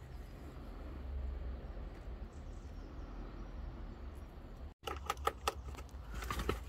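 Faint steady room hum, then, after a cut about five seconds in, a run of light taps and clicks from pet rabbits nosing at cardboard and toys.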